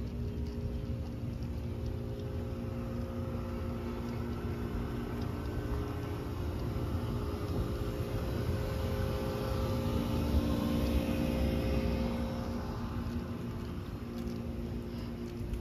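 Steady low mechanical hum made of several even tones over a rumble. It grows louder from about eight seconds in and eases off again after about twelve seconds.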